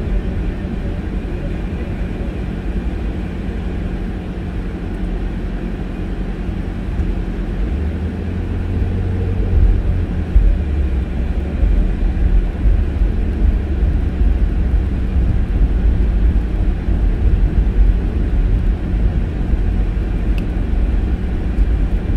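Car driving along a street, heard from inside the cabin: a steady engine and tyre rumble with a low hum, growing louder and heavier about eight seconds in.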